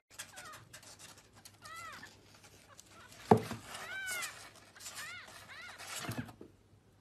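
A newborn kitten mewing: about four thin, high cries that rise and fall, spread across a few seconds. A sharp thump about halfway through and a softer one near the end, with faint scratching on cardboard.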